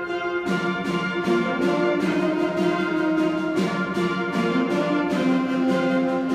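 Concert band playing: brass and woodwinds together, with a fuller entry about half a second in and the notes moving on at a steady beat.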